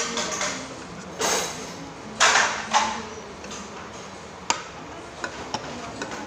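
Metal spoons scraping and tapping against bowls and plastic food containers while eating, with a few short scrapes and one sharp clink about four and a half seconds in.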